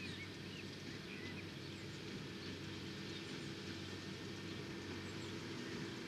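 Fendt 820 Vario tractor's diesel engine running steadily as it pulls a New Holland BigBaler 1270 through the hay. Small birds chirp over the machine, most often in the first second or so.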